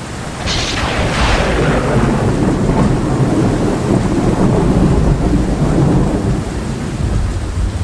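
Thunderclap about half a second in, its crack fading over a couple of seconds into a long low rumble, with rain falling throughout.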